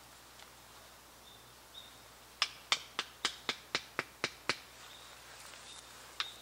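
A stake being hammered into the ground with a short hand tool while a tarp shelter is pitched: nine sharp taps, about four a second, over two seconds, and one more tap near the end.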